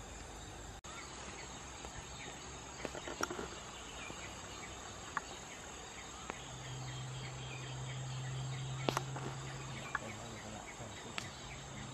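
Steady high-pitched drone of insects chirring, with scattered faint clicks. A low hum comes in a little past halfway and fades near the end.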